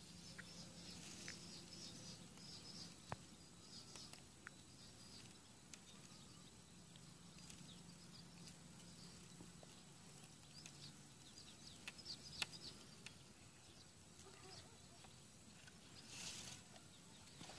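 Quiet outdoor ambience: faint, scattered high chirps of small birds, with a few soft ticks and clicks.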